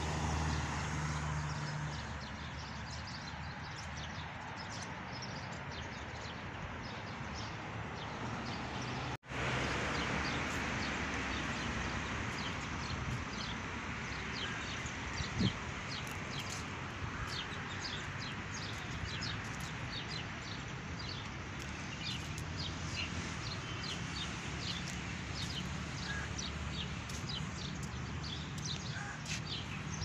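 Many small birds chirping in the trees, with dense short overlapping chirps over a steady background hiss. The sound cuts out for an instant about nine seconds in.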